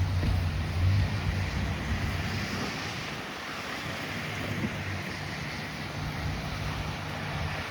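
Fire engine's diesel engine running, loudest in the first second, then easing, over a steady hiss of rain and wet road.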